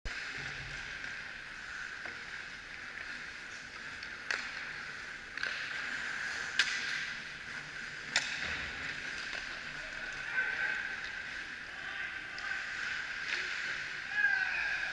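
Ice hockey rink ambience: a steady scrape of skate blades on the ice, with a few sharp clacks of sticks and puck, four of them in the first eight seconds, the loudest about six and a half seconds in.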